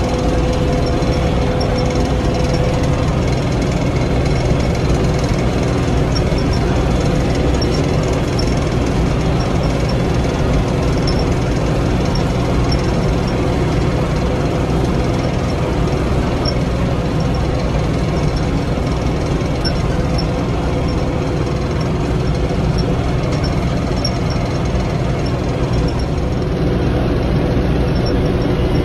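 LS MT347 compact tractor's diesel engine running steadily with no let-up, as the tractor heads out to work the next field. A faint whine fades out about three seconds in.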